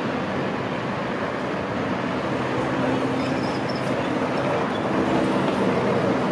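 Budapest articulated tram rolling through a curve at a street junction, its steady wheel and motor rumble mixed with passing car and van traffic and slowly getting louder. A faint, brief high squeal comes about three seconds in.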